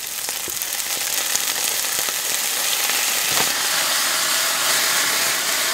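Soy sauce sizzling as it hits a hot non-stick frying pan of fried tofu cubes. The sizzle swells over the first second or so, then holds steady.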